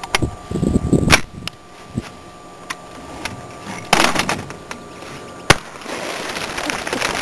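Long gun fired down into the water at close range: sharp clicks early on and about a second in as the gun is handled, then a loud shot about four seconds in and a sharper, louder crack about five and a half seconds in, followed by a rising rush of splashing water.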